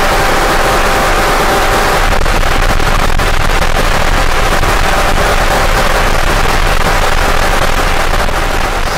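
Harsh noise music: a loud, dense wall of static and distortion. A few faint steady tones sit under it for the first two seconds, and it turns more crackly about two seconds in.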